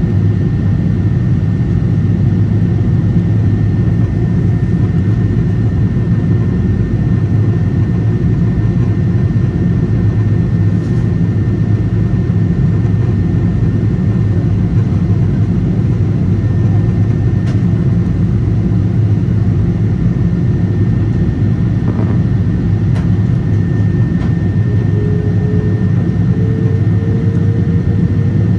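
Steady cabin noise inside a Boeing 777-300 airliner on its descent: the low rumble of the jet engines and the airflow past the fuselage, with a thin steady whine above it. Near the end a faint tone rises slightly.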